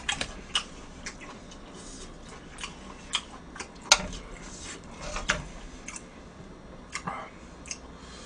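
Metal chopsticks tapping and clicking against a grill pan and dishes: scattered light clicks at uneven intervals, with one sharper click about four seconds in.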